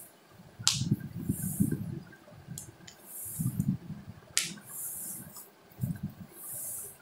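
Plastic snap buttons on a cloth diaper clicking shut, two sharp snaps about a second in and again past four seconds, with smaller ticks between and dull rubbing of the diaper fabric and plush fur as it is fitted.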